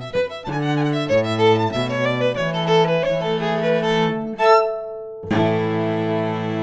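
Fiddle and cello playing a reel in duet: quick bowed notes over a moving cello line, a loud accented note about four and a half seconds in, a brief break, then both hold a long sustained closing chord.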